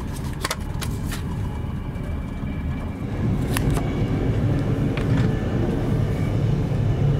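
Steady low rumble of a moving passenger train carriage running on the rails, heard from inside the sleeper car, growing louder about three seconds in. Several sharp clicks and knocks over it as the cabin door's lever handle is worked and the door opened.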